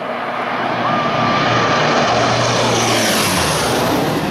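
Four-engine turboprop transport plane flying low overhead: a loud propeller and engine drone that swells to its peak about two seconds in, then drops in pitch near the end as the plane passes and moves away.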